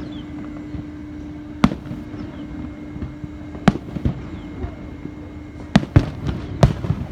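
Fireworks shells bursting in sharp, single bangs: one about one and a half seconds in, two more a little before the middle, then a quick cluster of three or four near the end.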